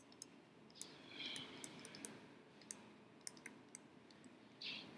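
Near silence with faint, irregular clicks and taps of a pen stylus on a digital writing tablet as words are handwritten.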